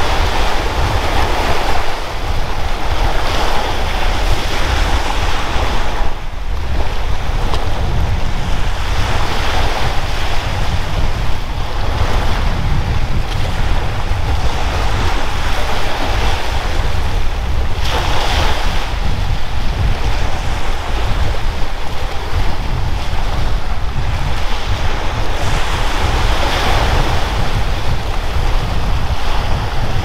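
Surf washing onto a beach, swelling and fading as waves come in every several seconds, with a steady low rumble of wind buffeting the microphone.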